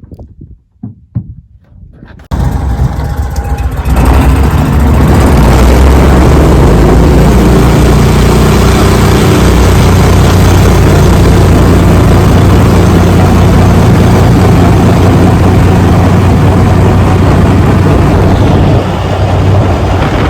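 A boat motor comes in suddenly about two seconds in, then runs loud and steady at speed, easing off slightly near the end.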